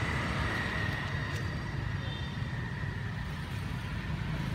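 Steady low rumble of road traffic, with a thin steady high tone running over it that fades out about four seconds in.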